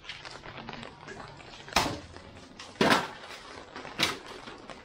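Cookware clattering: three loud, sharp knocks about a second apart, the middle one the loudest and deepest, among lighter clicks and clatter.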